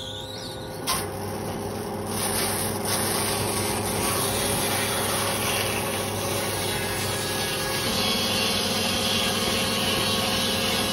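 A saw being sharpened: a steady rasping and rubbing that grows louder about two seconds in.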